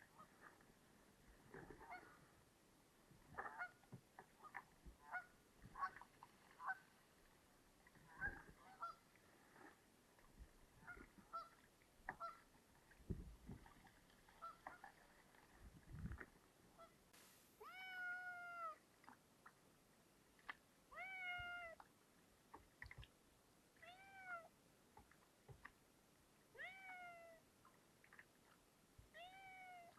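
Canada geese honking, a run of short calls through the first half. Then a cat meows five times, long drawn-out meows about three seconds apart.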